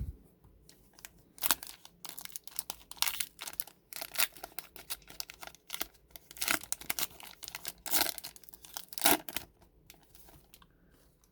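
Paper trading cards being handled and flipped through, giving irregular papery flicks, slides and crinkling rustles.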